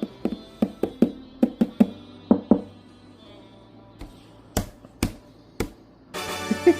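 A run of about ten quick knocks, each with a short hollow ring, then a pause and three sharper knocks about half a second apart; a ringing chime-like sound starts near the end.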